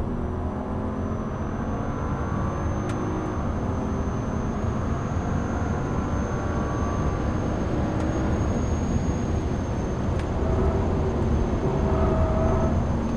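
BMW ActiveHybrid 3's turbocharged straight-six accelerating hard along a straight, its note rising in pitch over the first few seconds and then holding as the car nears top speed, over tyre and wind noise. A thin steady high whine runs throughout, and there is a single brief click about three seconds in.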